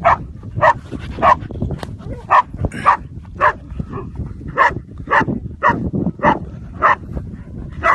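An animal giving short, sharp barks over and over at an even pace, just under two a second.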